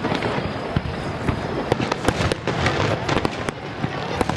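Aerial fireworks shells bursting in quick succession: many sharp bangs and crackles one after another, several a second.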